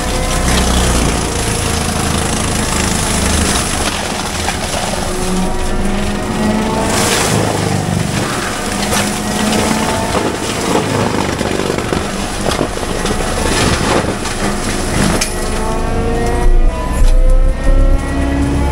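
Heavy equipment diesel engine running under changing load, its pitch rising and falling repeatedly. A few loud knocks come near the end.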